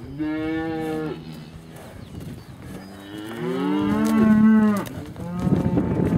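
Cattle mooing: one long moo at the start, then a louder, longer one about three seconds in, and more lowing near the end.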